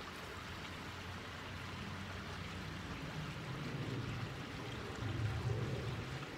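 Steady rushing background noise with a faint low hum that swells twice in the second half.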